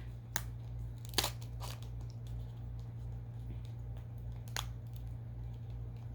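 A few short crinkles and ticks of a strawberry Push Pop Gummy Roll's packaging being handled, over a steady low electrical hum.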